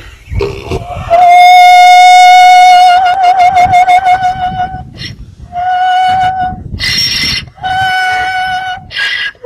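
A donkey braying in high, pure, singing-like notes: one long note that starts to waver about three seconds in, then two shorter notes with harsh rasps of breath between them.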